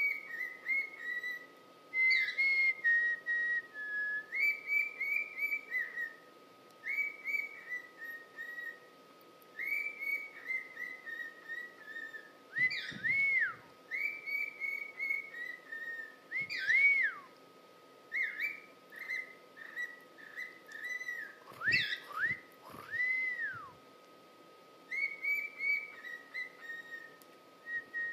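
Cockatiel warbling and whistling: a long run of short chattering notes in phrases, with a few sweeping up-and-down whistles. A faint steady tone hums underneath.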